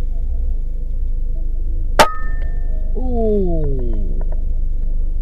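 A PCP air rifle fires once about two seconds in: a single sharp crack with a brief metallic ring. About a second later a pitched call slides steadily downward for about a second, over a steady low rumble.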